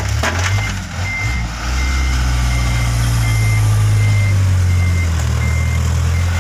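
Loaded dump truck's diesel engine pulling hard in reverse across soft, freshly dumped sand-and-gravel fill, growing louder about two seconds in and holding there, under strain on the soft ground. Its reversing alarm beeps steadily at one high pitch throughout.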